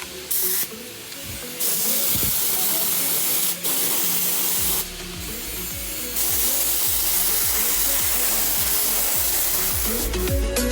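Hissing spray in stop-start bursts of about half a second to two seconds, then held steadily for the last four seconds, over background music with a regular beat.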